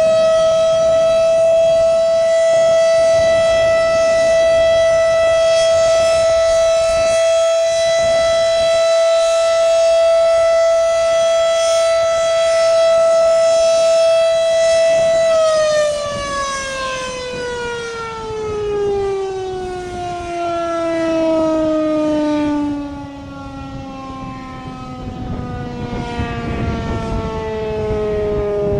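Federal Signal Model 5 electromechanical siren holding one steady, loud wail at full speed; about halfway through it is switched off and its pitch slides steadily down as the rotor winds down.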